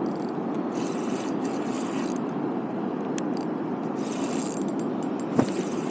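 Steady rushing of a fast, high-running river, with brief scraping sounds and a sharp click near the end.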